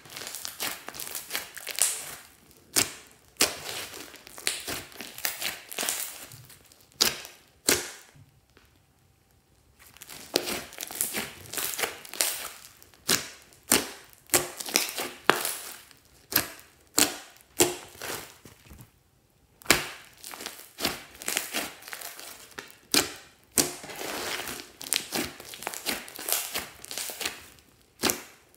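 Slime being squeezed, kneaded and stretched by hand, giving an irregular run of sticky pops and crackles. There is a pause of about two seconds roughly a third of the way in.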